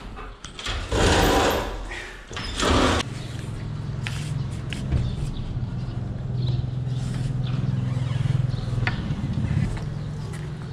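Two short, loud rushing noises, then a steady low mechanical drone like a small engine running, with scattered light clicks over it.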